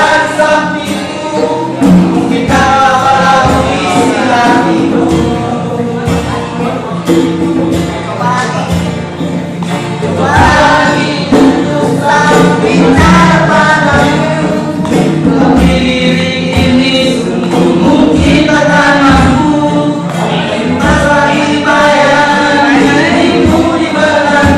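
A group of young men singing together to acoustic guitar strumming, with scattered beats on a tall hand drum.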